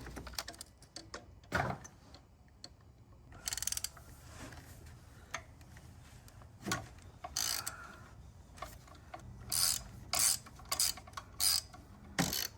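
Hand ratchet clicking in short bursts as bolts are worked loose, with a few clunks of tools against metal in between.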